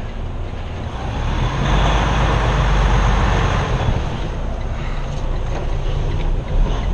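Semi truck's diesel engine running at low speed inside the cab while the tractor-trailer backs slowly, a steady low rumble. A broad rushing noise swells about two seconds in and fades again by about four.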